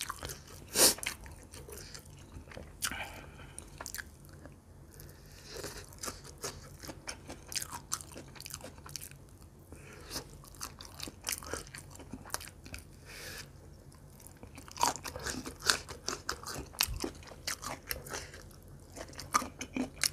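Close-miked biting and chewing of a grilled pork barbecue skewer with green vegetable pieces: a sharp crunchy bite about a second in, then a run of irregular wet crunches and mouth clicks as it is chewed.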